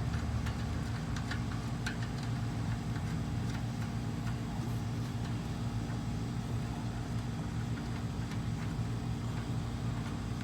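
Steady low mechanical hum, with a few faint light clicks of hand work on the motorcycle's rear brake linkage.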